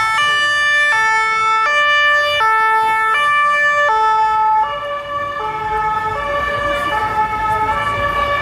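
Ambulance two-tone siren alternating between a high and a low note, switching about every three-quarters of a second. About five seconds in, as the ambulance passes and pulls away, both notes drop slightly in pitch and the siren gets a little quieter.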